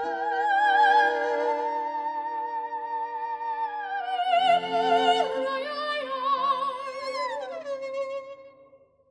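Soprano singing long, held phrases with wide vibrato over violin and guitar accompaniment. The voice slides down near the end as the music fades out.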